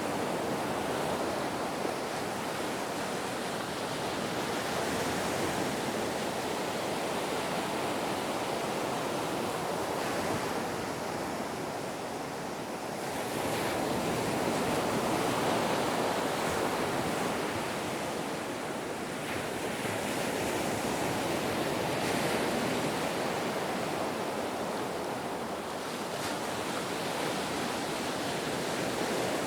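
Ocean surf: a continuous rush of waves that swells and eases every several seconds.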